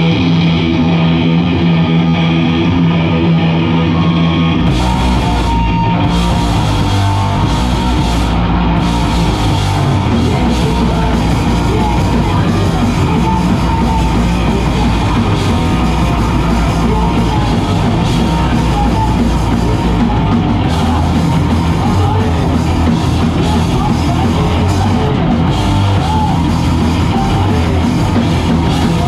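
Live punk band playing loud, distorted electric guitar and bass chords, with the drums and cymbals crashing in about five seconds in and the full band driving on from there.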